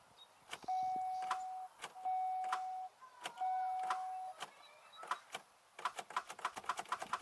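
Repeated sharp clicks, thickest near the end, from the 2002 Chevy Malibu as the key is worked in a no-crank: a weak starter. A steady electronic warning chime sounds three times, about a second each, in the first half, and the engine does not crank.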